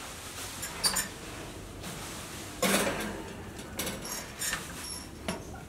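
A metal baking pan clinking and scraping onto the wire rack of a countertop electric oven, with a few sharp knocks from the rack and glass door; the loudest clatter comes just before the three-second mark.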